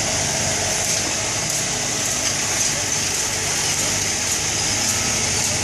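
Steady outdoor background noise: an even hiss over a low, steady engine rumble.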